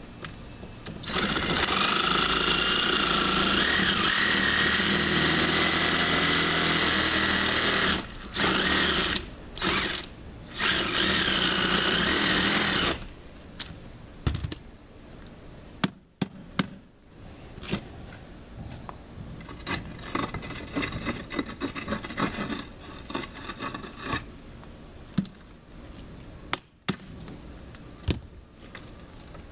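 Handheld cordless power tool running for about twelve seconds with a slightly wavering motor pitch, stopping and restarting three times near the end of the run. Afterwards come quieter scattered knocks and scraping.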